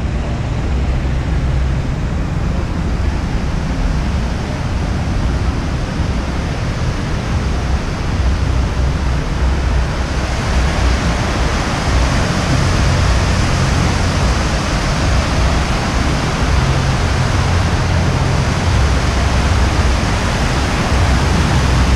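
Water pouring down a stepped concrete fountain cascade in a steady rushing splash, growing louder and brighter about halfway through, over a steady low rumble.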